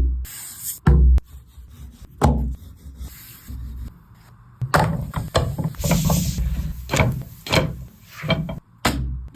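Kitchen utensils knocking and scraping: a few separate knocks in the first couple of seconds, then a busier run of clatters and scrapes.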